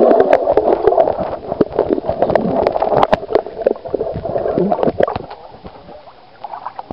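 Underwater bubbling and gurgling picked up by a submerged waterproof camera, with many sharp clicks and crackles as a swimmer moves and blows bubbles close to it. The sound is muffled and gets quieter about five seconds in.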